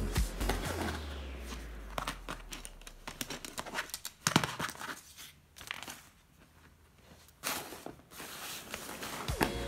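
Hard plastic LEGO Technic pieces being handled and pressed together: scattered sharp clicks and light rustling, the loudest click about four seconds in.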